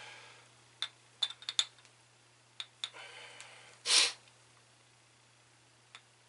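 Glass hot sauce bottles clinking and knocking lightly as they are handled and set down on a table, a few scattered clicks. About four seconds in comes one short, loud breath through the nose.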